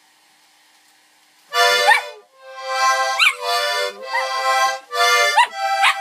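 Accordion playing several short bursts of chords, starting about a second and a half in, with a sheepadoodle puppy howling along in short rising cries over the music.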